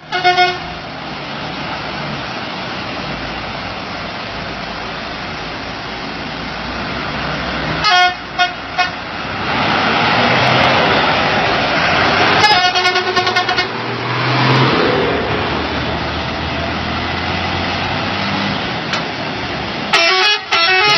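Log-laden trucks' engines running as they pass on a gravel road, with repeated horn blasts. There is one at the start, three short toots about 8 seconds in, a longer horn about halfway, and another near the end.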